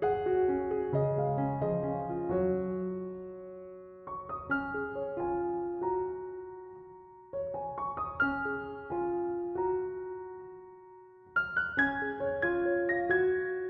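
Background piano music: slow phrases of struck notes and chords that ring and fade, each phrase dying away before the next begins.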